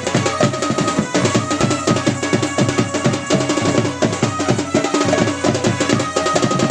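Folk-dance music: double-headed barrel drums (dhol) beaten in a fast, dense rhythm, with a held melody line above that moves between a few notes.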